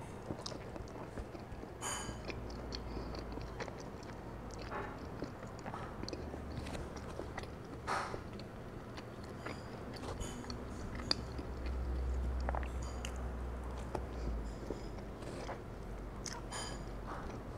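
A person biting and chewing rotisserie chicken, with scattered short mouth clicks and smacks.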